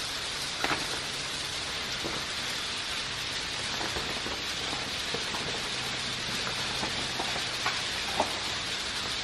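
Steady hissing background noise with a few faint clicks.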